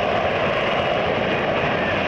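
F-35B jet engine and lift fan running in a steady vertical-flight hover, with the lift-fan door open. The result is a continuous loud jet rushing noise that holds level and pitch throughout.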